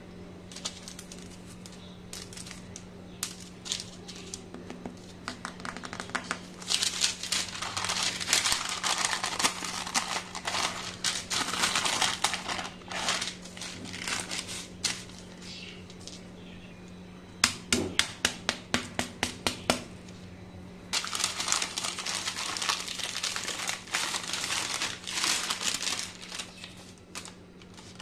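Parchment paper crinkling and crackling as hands work a sheet of honeycomb toffee off it. This comes in two long stretches, with a quick run of about ten sharp clicks between them.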